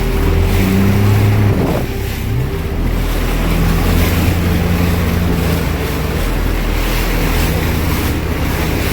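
Jet ski engine running at speed, with water rushing past and wind buffeting the microphone. The engine eases off briefly and picks up again about two seconds in.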